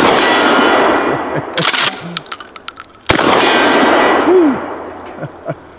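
Two 12-gauge slug shots from a DP-12 double-barrel pump shotgun, about three seconds apart, each echoing off for more than a second. Between them come a short rattle and a few mechanical clacks from the gun.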